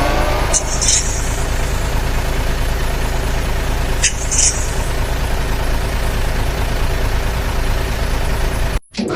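Truck engine sound effect running with a steady low rumble, with two short air-brake hisses, about half a second in and about four seconds in. It cuts off suddenly near the end.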